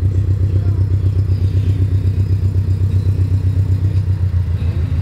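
Scion FR-S's flat-four engine running fully catless through a straight test-pipe front pipe, giving a deep, steady exhaust note at low revs with an even pulsing and no revving.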